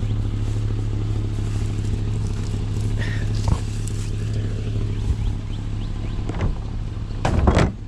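Truck engine running with a steady low drone, with a few brief knocks or rattles, the loudest two close together near the end.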